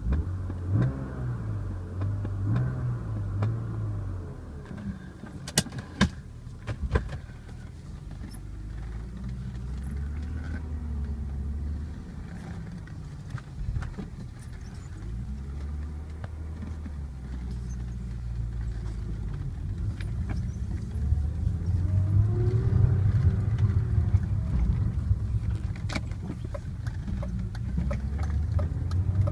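BMW E36 M3's S52 straight-six engine running, its revs slowly rising and falling, with the muffled noise the owner cannot identify. A few sharp clicks come through, two close together about six seconds in, and the engine grows louder in the last third.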